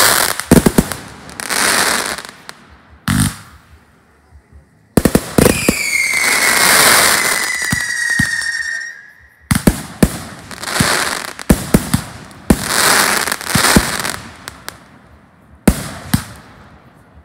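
Aerial fireworks going off: repeated sharp bangs of bursting shells, each followed by crackling. About five seconds in, a loud hiss with a whistle falling slightly in pitch runs for about four seconds and cuts off suddenly, before more bangs and crackle.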